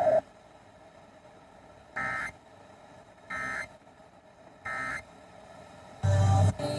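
Emergency Alert System end-of-message signal: three short, identical bursts of warbling digital data tones, each about a third of a second, about a second and a half apart. The test is over and normal broadcasting is about to resume. About six seconds in, the station's regular audio cuts back in loudly.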